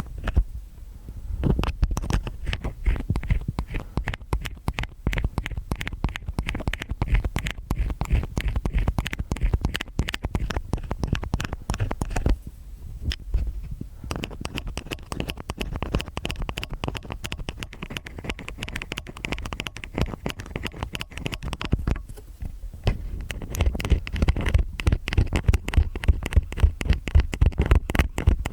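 Stainless steel ear pick scratching and scraping in an ear, a dense crackling run of small clicks with a low rumble, broken by two short pauses about 12 and 22 seconds in.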